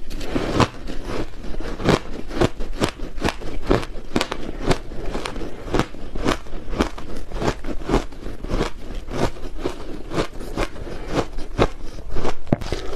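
Close-miked crunching of ice being chewed, a rapid run of sharp crunches at about three or four a second.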